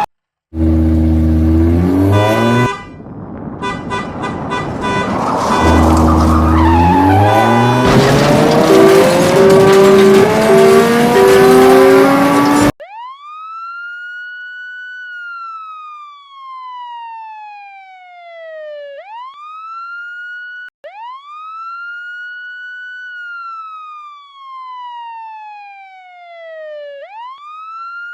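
For the first dozen seconds, a loud jumble of noise and held tones. It cuts off suddenly to a clean, electronic-sounding wailing siren effect: each cycle rises quickly, then falls slowly over about six seconds, about three times over.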